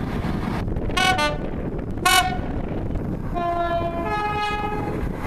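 British train horns sounding over the steady rumble of a train. Two short toots come about a second in, then a louder short blast, then near the end a longer two-tone horn, a low note followed by a higher one.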